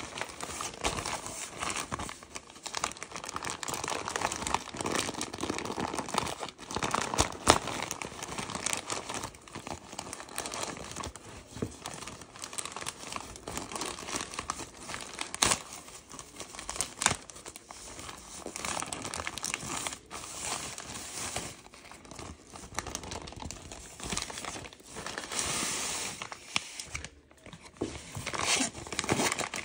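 Plastic shipping mailer bag being crinkled and torn open by hand: continuous crinkling and tearing of the film, with a few sharper cracks, the loudest about a third of the way in.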